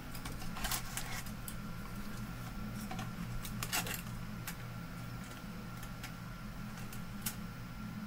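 Hands working the white mounting ring and cables on the opened back of a monitor: scattered light clicks and taps, over a steady low hum.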